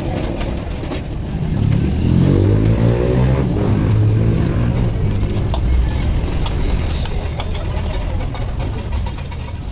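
A small motorcycle engine revs up about two seconds in, then keeps running and gradually eases off.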